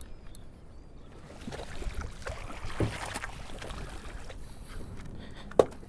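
Water splashing as a gaffed kingfish thrashes beside a small boat, with one sharp knock near the end.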